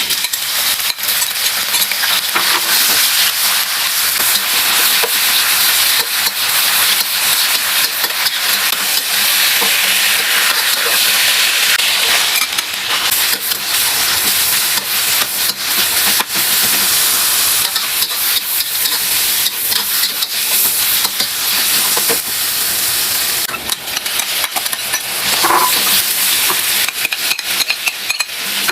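Food sizzling in a hot pan while being stir-fried, with frequent short scrapes and clicks of the spatula against the pan.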